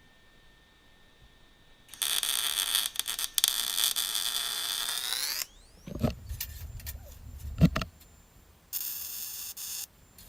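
Electric welding arc on steel, in two bursts of crackling buzz: one of about three and a half seconds whose pitch rises as it ends, then after a few low knocks a second of about a second near the end.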